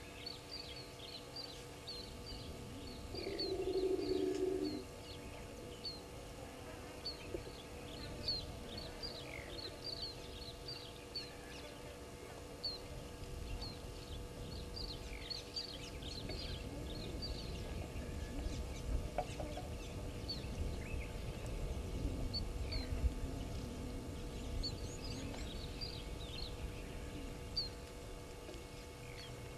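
Small birds chirping in short repeated notes throughout, with one louder, lower animal call lasting about a second and a half a few seconds in. A low rumbling noise swells through the middle.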